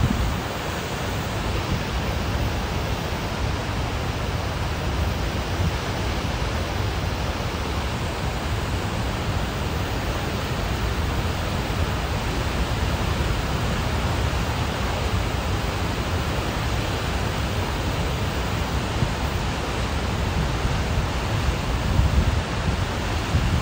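Floodwater of the swollen Blue Earth River rushing and churning at the Rapidan Dam, a steady, unbroken rush of water.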